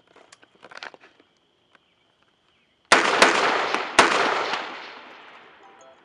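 Two loud gunshots about a second apart, each followed by a long rolling echo that dies away over a couple of seconds. A few light handling clicks come before them.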